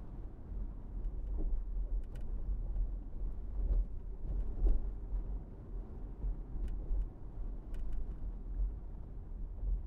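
A car driving through city traffic: a steady low road rumble, with a few faint clicks.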